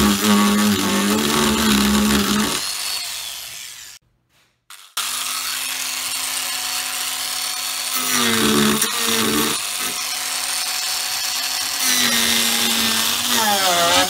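Proxxon mini angle grinder spinning a 50 mm eight-tooth mini chainsaw carving disc, cutting into a wooden block; the motor's whine drops in pitch each time the teeth bite. It dies away and goes silent briefly about four seconds in, then runs again, bogging down under cuts at about eight and twelve seconds.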